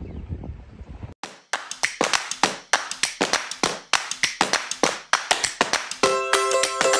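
Background music track opening with a steady rhythm of hand claps, about four a second. A plucked string instrument such as guitar or ukulele joins near the end. Before the music, there is wind on the microphone for about a second.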